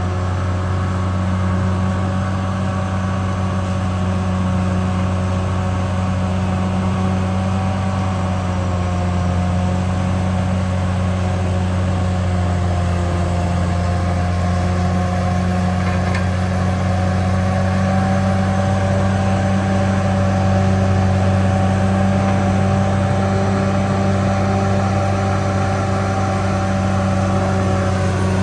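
CAT D6R XL bulldozer's diesel engine running steadily: a deep drone with a higher whine over it, the pitch edging up slightly past the middle.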